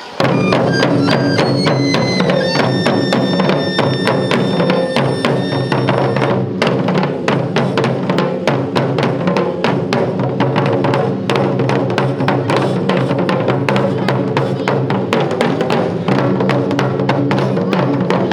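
Japanese taiko drum ensemble playing a fast, dense stream of drum strikes over a steady low drone, with held high melodic tones over the first six seconds or so.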